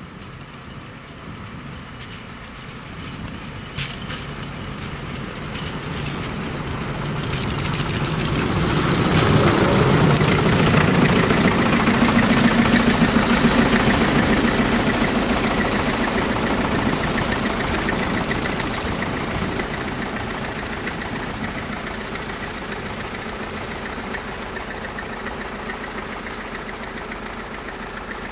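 Diesel engine of an ESU2A narrow-gauge self-propelled power station railcar running as the railcar approaches and passes. It grows louder to a peak about a third of the way in, then fades steadily as it moves away.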